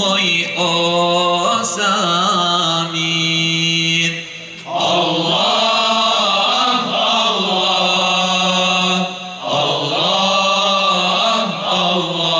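Male vocal group singing: a lead voice carries a wavering, ornamented melody over a steady low note held underneath, with short breaks for breath about four and nine seconds in.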